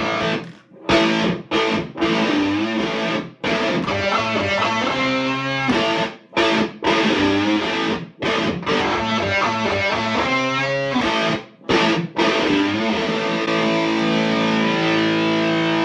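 Electric guitar played through a handmade octave pedal, distorted, in short riffs broken by brief pauses, ending on a long held note.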